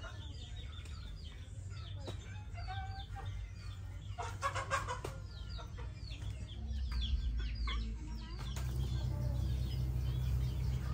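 Chickens clucking and chirping, with a brief clatter about four and a half seconds in. A low steady hum swells over the last few seconds and becomes the loudest sound.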